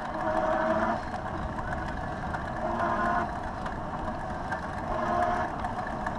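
Electric bicycle riding along a paved road: steady wind and tyre noise at the handlebar, with a mid-pitched whine that swells and fades several times.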